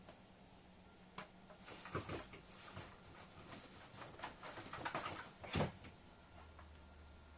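Indesit washing machine drum turning slowly, with slippers tumbling inside: scattered soft knocks and clicks at uneven intervals, and one heavier thump about five and a half seconds in.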